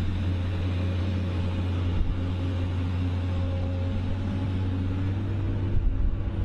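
A large engine running steadily with a deep, even drone.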